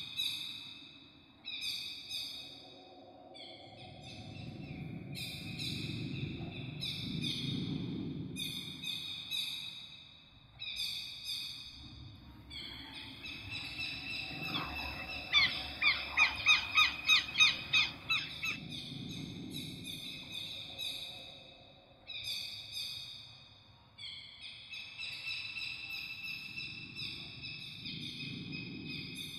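Birds calling: a short high call repeats about once a second, and midway comes a louder run of quick downward chirps. Underneath, a low rushing sound swells and fades every few seconds.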